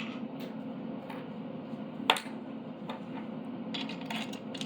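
Small metal parts of a CNC machine kit being handled during assembly: light clicks and clinks, one sharp click about two seconds in and a cluster of small clinks near the end, over a steady low hum.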